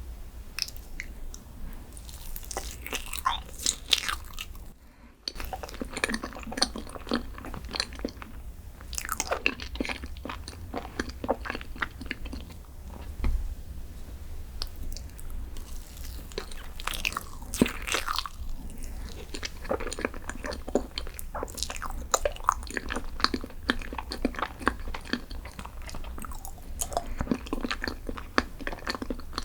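Close-miked eating: a person biting and chewing with crisp, crackling crunches, over and over, with a brief break about five seconds in.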